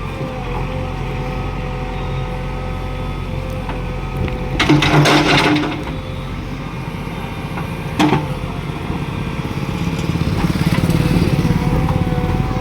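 JCB 3DX backhoe loader's diesel engine running steadily, with a loud rattling burst lasting about a second near the middle and a single sharp knock a few seconds later. The engine gets louder near the end.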